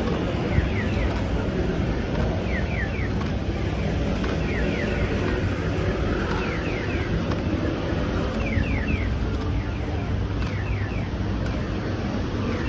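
Steady low rumble of a moving road vehicle, with a quick high chirp, two or three notes falling in pitch, repeating about once a second.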